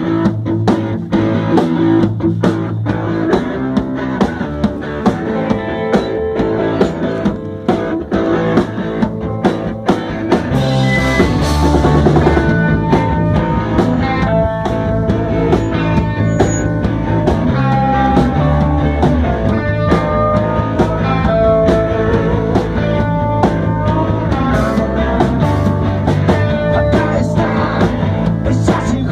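Rock music with a drum kit keeping a steady beat under bass and guitar, filling out slightly about eleven seconds in.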